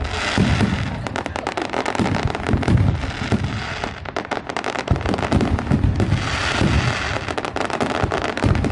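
Fireworks going off in a dense, continuous barrage: many overlapping sharp bangs and deep booms mixed with crackling.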